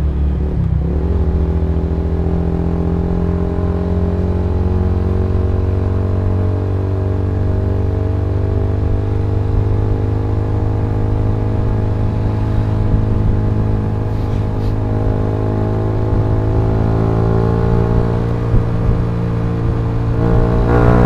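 Suzuki GSX-R150 single-cylinder engine pulling steadily in gear, its pitch rising slowly as the bike gathers speed, over a steady low rumble. It gets a little louder near the end.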